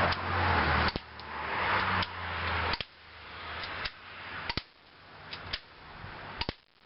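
Smith & Wesson airsoft pistol shooting BBs: a string of sharp clicks and snaps, about five louder ones a second or two apart, over gusts of wind rushing on the microphone.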